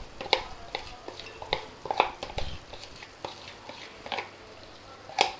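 Metal spoon scraping and tapping against a container as thick ground coconut paste is scraped out into a pot of curry: a scattered series of short scrapes and clicks, with one sharper knock near the end.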